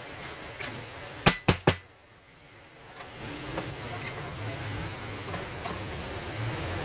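Three quick, sharp metallic clinks of hand tools, a pointed pick and pliers, striking the steel housing of a magnetic coil being stripped for rewinding. A low rumble builds in the background after that.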